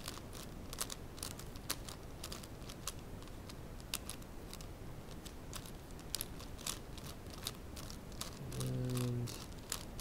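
A 4x4 Rubik's cube being twisted by hand: its plastic layers click and clatter in quick, irregular turns. A brief low hum of a voice comes near the end.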